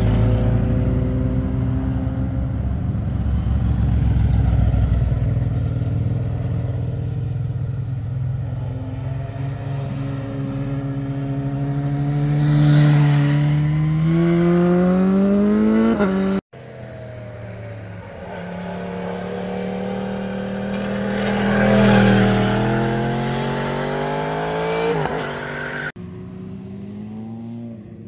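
Motorcycles passing one after another through a bend, each engine note rising as the bike accelerates away. There is a sudden break about halfway through, and the engine sound stops abruptly near the end.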